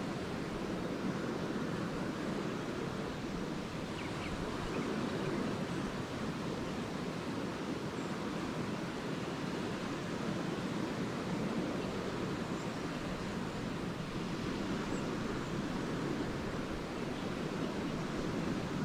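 Small lake waves washing continuously onto the beach, a steady even wash of surf with no single break standing out.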